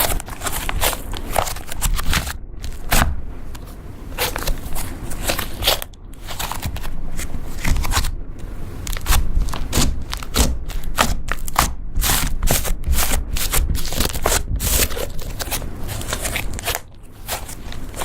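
Hands kneading, pressing and stretching butter slime: a dense run of sticky clicks and crackles, some pauses between squeezes.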